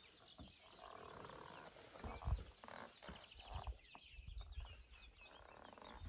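Faint dawn birdsong: many small birds chirping and trilling together, with soft low thumps and rustling from footsteps and camera handling.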